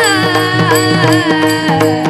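Marathi devotional bhajan music: a held melodic line that bends in pitch, over a steady drone and regular drum strokes.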